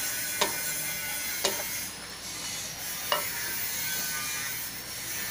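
Wooden spatula stirring chicken gizzards and chicken in a metal wok, knocking sharply against the pan three times, over a steady sizzle of meat frying.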